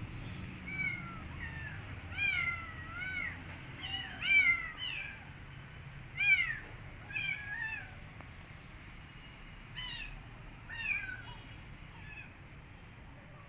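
Kitten meowing over and over: about a dozen short, high-pitched calls that rise and fall in pitch, loudest in the middle and thinning out near the end.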